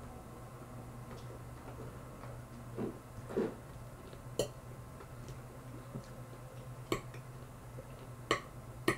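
A metal fork clicking against a dinner plate four sharp times while someone eats, with a couple of softer, duller sounds earlier on. A low steady hum sits underneath.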